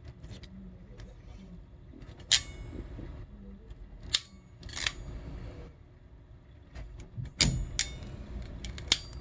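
Hand tools being handled while crimping spade terminals onto wire ends: a crimping tool and small metal terminals clicking and clacking on a tabletop, about six sharp clicks at uneven intervals over soft handling rustle.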